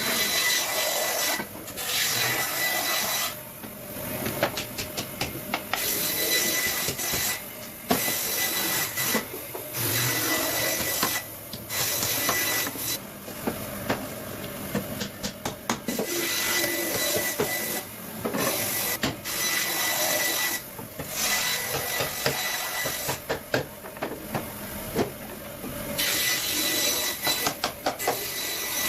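Workshop tool noise from woodwork on a sofa frame: stretches of rough rasping and scraping a few seconds long, broken by short pauses, with runs of quick sharp clicks.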